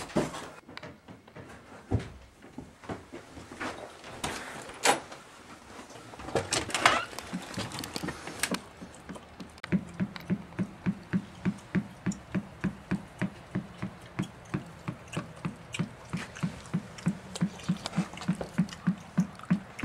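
Footsteps and scattered knocks on wooden stairs, then a steady rhythmic thumping, about three beats a second, from about halfway through.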